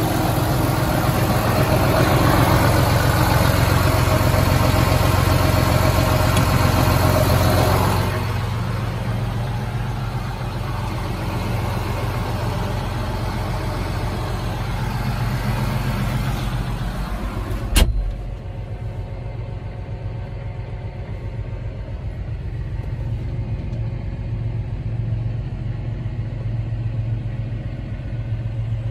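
John Deere 8330's six-cylinder diesel engine idling steadily. Partway through a loud thump sounds, like the cab door shutting, and after it the engine is heard muffled from inside the closed cab.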